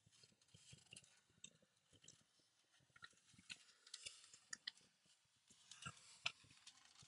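Near silence with faint, scattered clicks and rustles of a rubber floor mat being lifted and bent back by hand; the sharpest click comes a little after six seconds in.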